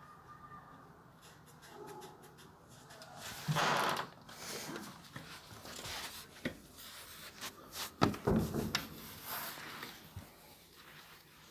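A puppy playing and scrambling on a wooden floor, with a short loud noisy burst about three and a half seconds in and a few sharp knocks around eight seconds in.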